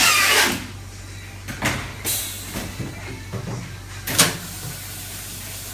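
Lipovak gas-flush vacuum chamber packaging machine running its cycle with the lid down: a steady low hum, a burst of air hissing right at the start, a couple of shorter hisses, and a sharp clack about four seconds in.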